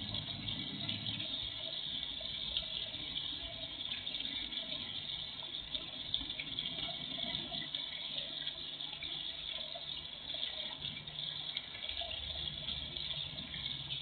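Small garden pond fountain splashing steadily into the pond water, with a faint low hum that comes and goes underneath.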